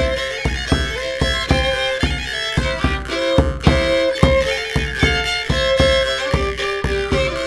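Dark folk ambient music: a bowed fiddle melody over held drone notes, with a steady drum beat of about three hits a second.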